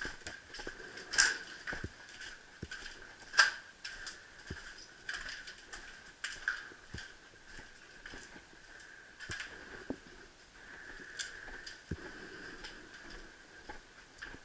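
Footsteps on a debris-strewn floor: irregular scattered clicks and knocks, with two sharper cracks about a second in and at about three and a half seconds. A faint steady high hum runs underneath.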